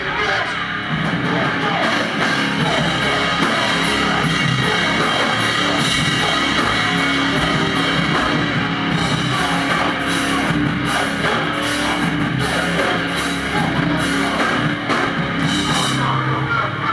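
Heavy band playing live and loud, with distorted electric guitar, a pounding drum kit with crashing cymbals, and vocals.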